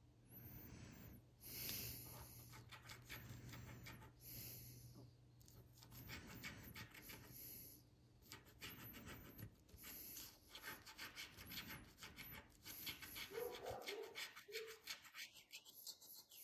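A coin scraping the coating off a scratch-off lottery ticket in quick, faint strokes, in runs of a second or two with short pauses.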